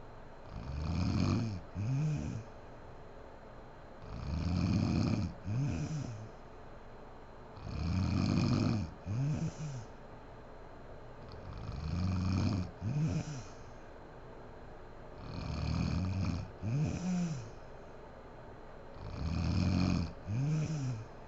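A woman snoring in her sleep, six breaths about every four seconds. Each breath is a rasping snore of about a second, followed at once by a shorter sound that rises and falls in pitch.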